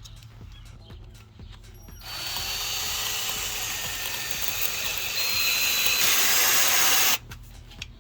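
Power drill boring a hole in the wall to mount a doorbell bracket. It starts about two seconds in, runs steadily for about five seconds, gets louder near the end and then stops abruptly.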